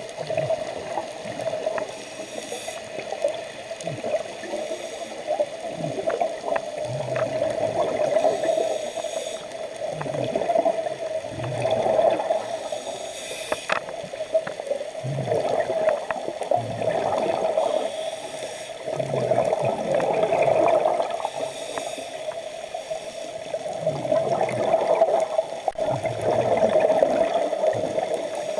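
Scuba diver breathing through a regulator underwater: bubbles gurgling out on each exhale in slow, regular swells every few seconds, over a steady underwater hiss.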